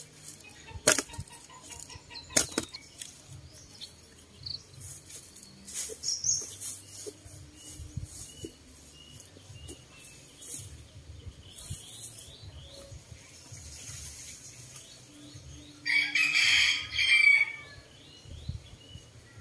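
Outdoor garden ambience: small birds chirping in runs of short repeated notes, a few sharp knocks in the first few seconds, and one loud rustling, flapping burst lasting about a second and a half near the end.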